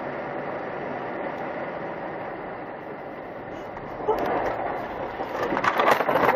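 Steady road and engine noise heard inside a moving car. About four seconds in it turns louder and rougher as the car runs off the road onto the verge. Near the end come a quick run of knocks and thumps as it ploughs into roadside bushes and trees.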